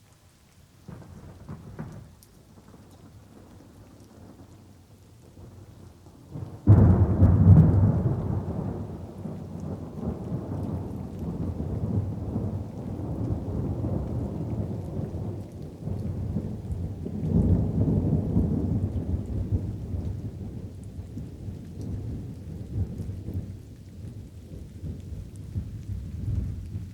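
Thunder over light rain: a faint rumble early, then a sudden loud thunderclap about a quarter of the way in that rolls on as a long low rumble, swells again past the middle and fades near the end.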